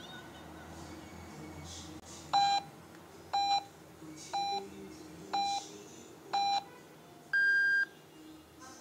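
Radio time signal from China National Radio's Voice of China, heard through a Tecsun PL-600 receiver's speaker: five short beeps a second apart, then one longer, higher beep that marks the top of the hour, 10 o'clock Beijing time.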